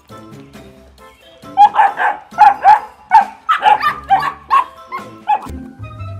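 A dog barking in a quick run of about ten barks, starting about a second and a half in and stopping shortly before the end, over background music.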